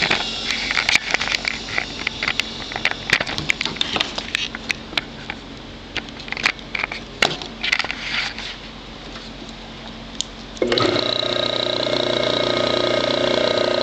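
Irregular clicks, knocks and scrapes of equipment being handled, then, about three-quarters of the way in, a motor switches on abruptly and runs steadily with a high whine.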